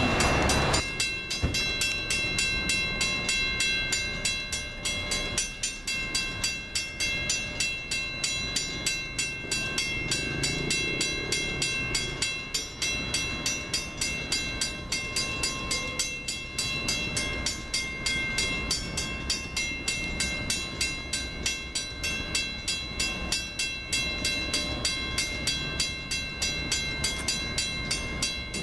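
Railroad grade-crossing bell ringing steadily in rapid, evenly spaced strikes, each leaving a ringing tone, with a low rumble beneath.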